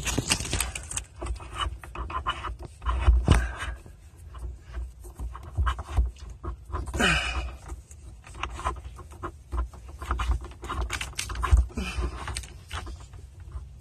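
Irregular rustling, scraping and light knocking as a length of earth wire is fed and pulled through a hole in a door frame.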